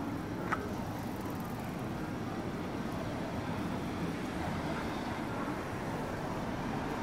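Steady city street noise with road traffic, and one short, sharp click about half a second in.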